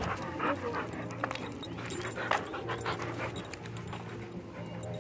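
A dog making small vocal sounds, with scattered short clicks and scuffs over a low steady hum.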